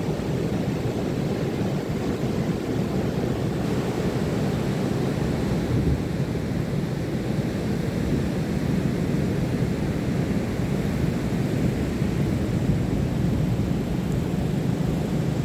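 Steady low rush of ocean surf, with wind on the microphone.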